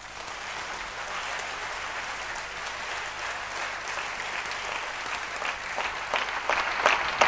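Audience applauding: dense, steady clapping that swells near the end, where a few sharp individual claps stand out.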